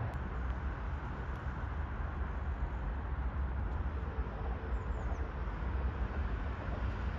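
Steady low rumble of distant city traffic, without a break. A faint short high chirp of a small bird about five seconds in.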